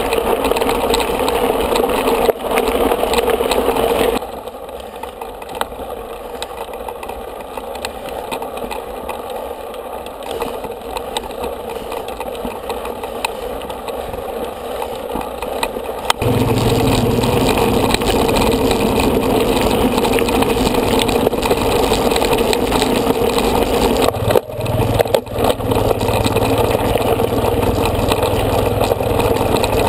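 Mountain-bike riding noise picked up by a helmet camera: wind and rattle over gravel and dirt trail. In the second half a steady low engine hum joins it, from an off-road motorcycle riding just ahead of the bikes.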